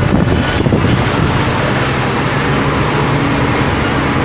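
Scania P310 fire truck's diesel engine running under way, heard from inside the cab: a steady drone with road noise, the engine holding an even pitch from about halfway through.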